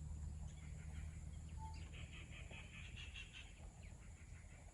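Birds chattering faintly in the surrounding forest: a run of short, quick notes for about three seconds, over a low steady hum.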